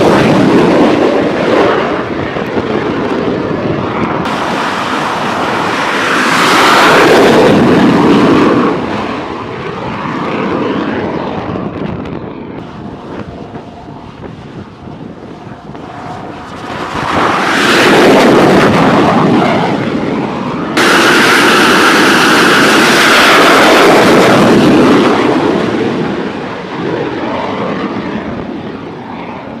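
T-45 Goshawk jet trainer's turbofan engine running at high power. It swells loud and fades several times, with sudden jumps in level about four and twenty-one seconds in. A steady high whine sits in the loudest stretch, between about the twenty-first and twenty-fifth seconds.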